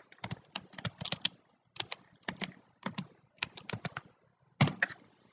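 Keys tapped on a computer keyboard in an uneven run of quick clicks as a short search term is typed, ending with one louder click.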